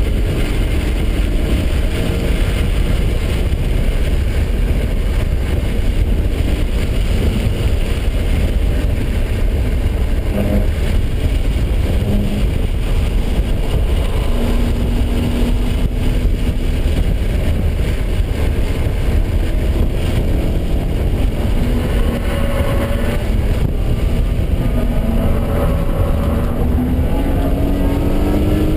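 BMW engine running hard under load, heard from inside the cabin on a track lap, over heavy road and wind noise; its pitch climbs as the car accelerates near the end.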